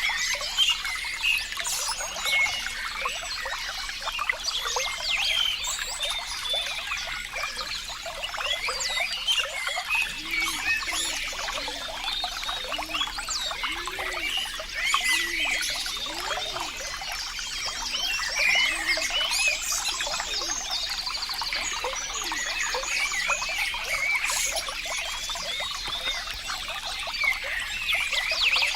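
Water trickling and babbling steadily over stones, a continuous bright burble of small splashes, with a run of low repeated sounds in the middle.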